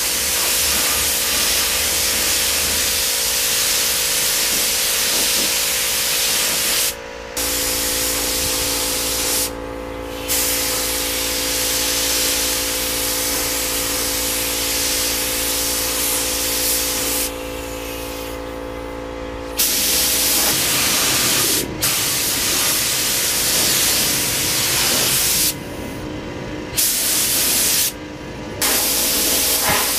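Air spray gun hissing steadily as it sprays clear coat onto a motorcycle fairing, with about five short breaks where the trigger is let go. A steady hum runs underneath.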